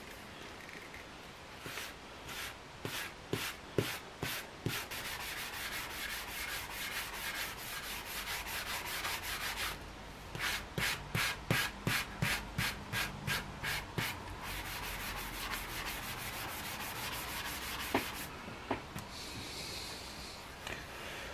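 Light hand-sanding of a Tru-oil-finished wooden rifle stock between coats, to smooth off the stippled surface of the first coat. It comes as separate scraping strokes, then steady rubbing, then strokes at about two or three a second, then steady rubbing again, and it stops near the end.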